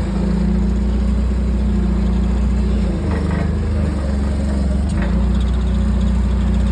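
Forklift engine running under load while reversing and towing a bus by rope, its engine note shifting about halfway through and again a little later.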